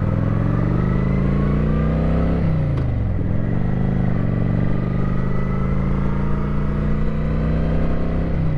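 Kawasaki Vulcan 900's V-twin engine pulling away and accelerating, rising in pitch, with a sharp drop at an upshift about two and a half seconds in. It then runs at a steady speed, with another shift near the end.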